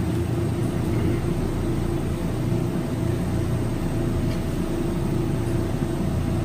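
Bench-mounted glassworking torch burning steadily, a constant rush of flame noise with a steady hum underneath, as glass is heated in the flame.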